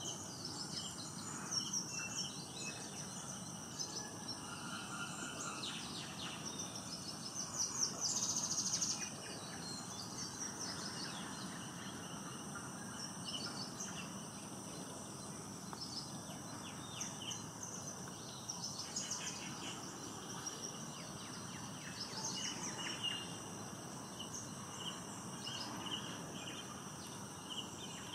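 Grey wagtail singing: a varied run of high, thin chirps and trills in short bursts, the loudest about eight seconds in. It is a wintering bird's song, quite different from the species' sharp winter call.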